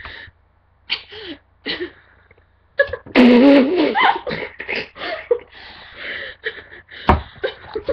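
A girl's wordless reaction to a foul taste: three short coughing sounds about a second apart, then about four seconds of loud wordless squealing and laughing. A single dull thump comes near the end.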